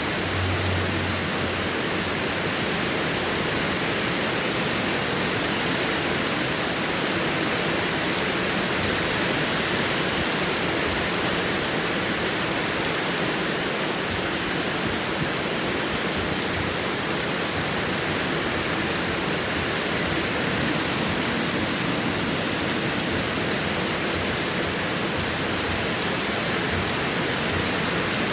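Heavy rain falling steadily, an even unbroken hiss of rain on surfaces.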